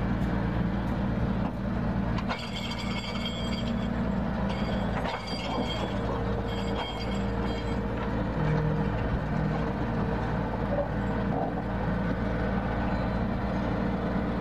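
Heavy diesel engines of two excavators running steadily at work. Short high-pitched squeals and a couple of knocks come in between about two and seven seconds in.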